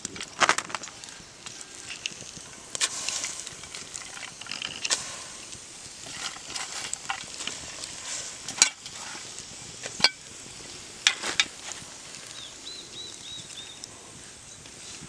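Food sizzling in hot oil in a pan, stirred with a spatula that scrapes and knocks against the pan now and then.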